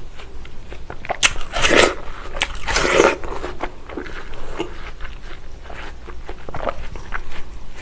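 Close-up eating sounds of fresh watermelon being bitten and chewed: two louder wet, juicy crunches about one and two and a half seconds in, then softer steady chewing with small wet clicks.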